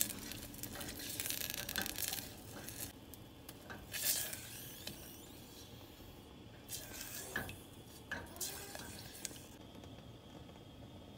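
Silicone spatula stirring dal and sweet potato pieces in a steel pressure cooker, scraping against the pot. The stirring is dense at first, then comes in separate short strokes.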